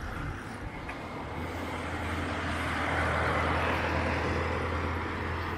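Road traffic: a motor vehicle passing close by, its noise building over the first three seconds and then easing slightly, with a steady low engine hum underneath.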